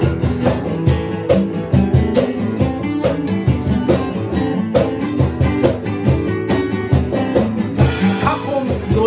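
Acoustic band playing: strummed guitars over a steady cajón beat, with a voice singing near the end.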